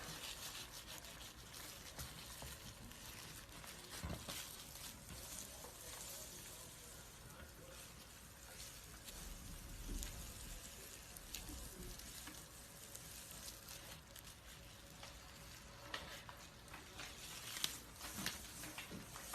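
Snake skin being shed: a continuous papery crackle and rustle with scattered sharp clicks.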